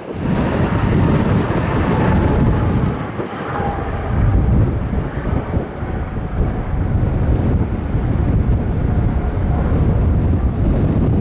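Airbus A350's Rolls-Royce Trent XWB turbofan engines running loud as the airliner rolls along the runway: a deep rumble with a faint engine whine above it.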